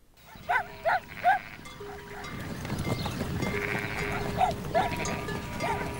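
A flock of sheep on the move, with short bleats and the steady ringing of sheep bells over a rustle that builds after the first second or two.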